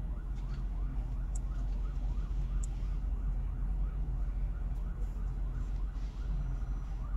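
A siren in a fast rising-and-falling yelp, about two to three cycles a second, heard faintly over a steady low rumble.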